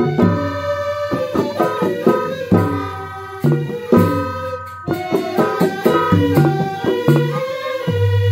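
Balinese gamelan gong suling: many bamboo suling flutes playing a melody together over quick kendang drum strokes and metallic percussion.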